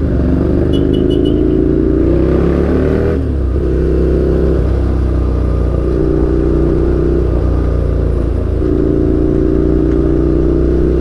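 Ducati Scrambler Nightshift's air-cooled L-twin, fitted with an aftermarket Orion exhaust and with its catalytic converter removed, heard from the saddle while riding. The engine pitch rises for about three seconds and drops at a gear change, then it runs at a steady cruise with a few gentle rises.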